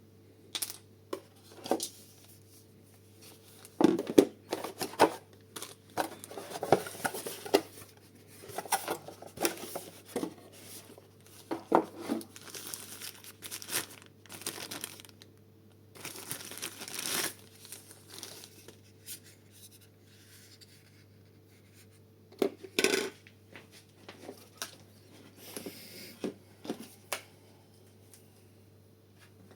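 Packaging being handled: irregular paper and cardboard rustling and crinkling, with light clicks and knocks. A faint steady hum runs underneath.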